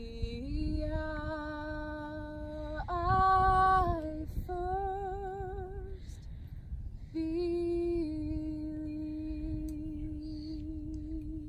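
A woman singing slowly and unaccompanied, holding long notes with vibrato. There is a short breath-break about six seconds in, and after it a long held note.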